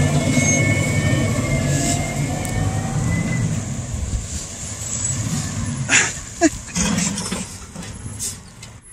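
Garbage truck's diesel engine running as the truck moves off, a low drone that fades after about four seconds. A few brief knocks and a short pitched sound near six seconds in.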